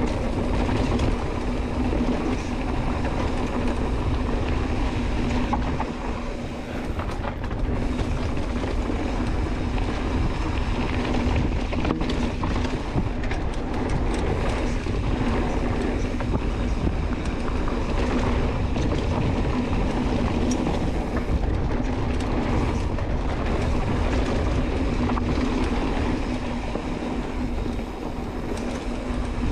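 Mountain bike rolling fast down a rough, rocky downhill trail: continuous rattle and tyre noise over the ground, with a steady drone throughout and rumble of wind on the camera microphone.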